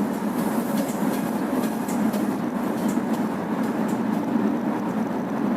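Steady road and engine noise heard inside a moving car: a constant low rumble with a few faint ticks scattered through it.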